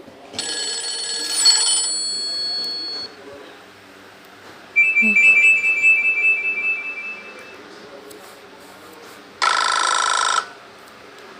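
Nokia 2760 mobile phone playing a series of short alert tones through its small speaker. First comes a bright ringing tone about three seconds long, then a run of quick high beeps, then a buzzy tone lasting about a second near the end.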